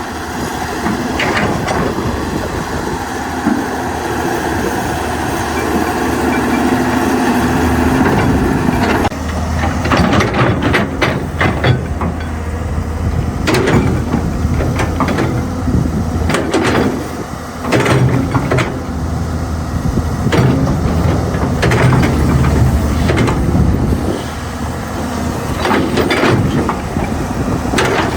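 Excavator running steadily with a low engine hum that shifts in pitch now and then. From about nine seconds in, irregular knocks and clanks come over it.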